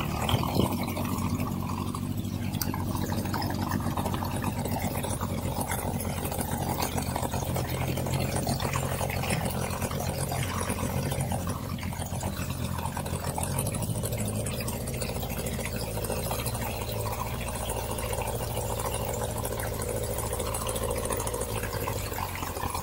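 Boat's outboard motor running steadily, with water noise over it.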